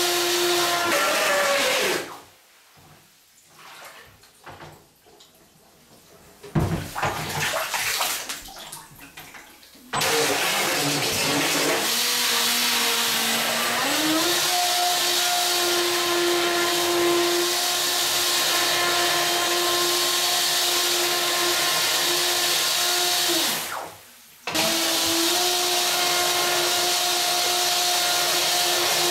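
Brushless electric motor of a Pro Boat Miss Geico RC boat running, its propeller churning bathtub water while water flushes through the cooling system; a steady high whine over loud water noise. The motor stops about two seconds in, leaving quieter water sounds and a few knocks, starts again about ten seconds in and rises in pitch a few seconds later, then cuts out for about a second near the end before running on.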